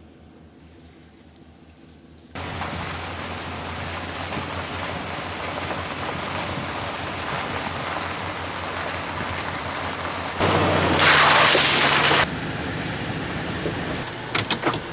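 Pickup truck driving, a steady rush of engine and road noise with a low hum. It starts suddenly a couple of seconds in and swells louder and hissier for about two seconds in the middle.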